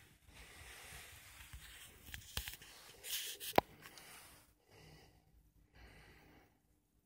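Breathy hiss and rustling close to a handheld device's microphone, with a few sharp clicks, the loudest about three and a half seconds in, fading to near quiet at the end.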